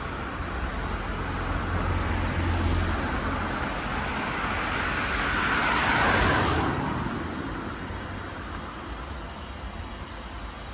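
Road traffic: a vehicle passes by, its noise swelling to a peak about six seconds in and then fading, over a low rumble of traffic.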